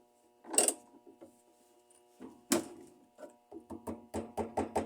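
Metal tool knocks and clicks while the washing machine motor's mounting bolt is tightened to hold the drive belt taut: a few separate knocks, then a quick run of clicks at about four a second in the second half.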